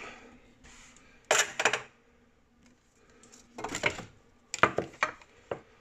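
A few short clusters of metallic clinks and knocks as boiler pipework and fittings are handled and moved inside the metal boiler casing.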